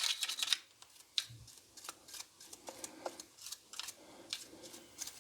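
Light scratchy cleaning strokes over the first half-second, then scattered small plastic clicks and ticks as the fabric shaver's removed blade and head are handled and cleaned of lint.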